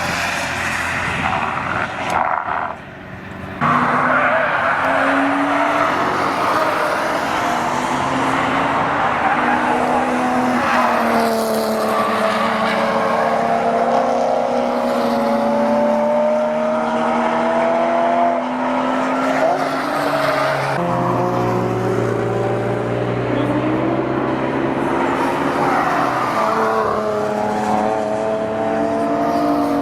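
Toyota Supra's 2JZ straight-six revving hard, its pitch climbing and falling through the gears, with a noisy hiss over it that may be tyres. It drops away briefly about 3 s in and changes abruptly about 21 s in.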